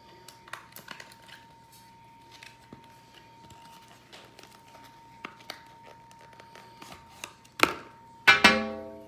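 Light clicks and crinkles of a trading-card pack wrapper being torn open and the cards handled, over a faint steady high hum. Near the end comes a sharp crack, then a loud pitched tone that fades within a second.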